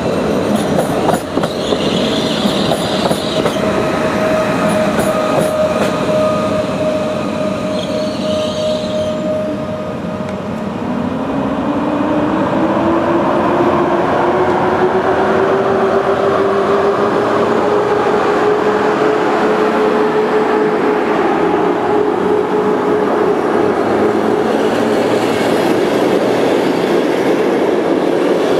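Electric trains at a station. First an EN76 Elf electric multiple unit moves past with a steady whine and clicking wheels. Then, from about ten seconds in, an EP08 electric locomotive pulls its coaches away: its whine rises in pitch and levels off as it gathers speed, over the rumble and clatter of the passing coaches.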